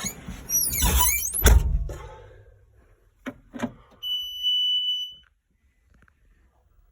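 Squeaking and two heavy thumps, then two sharp clicks, then a single steady high electronic beep lasting about a second from the Bobcat T595 skid-steer's warning buzzer. No engine cranking or running follows: the machine will not start.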